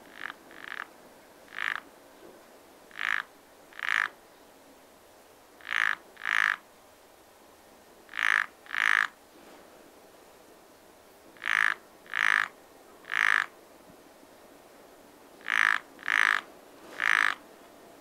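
A frog croaking in short calls, each about a third of a second long, in bouts of two or three every couple of seconds.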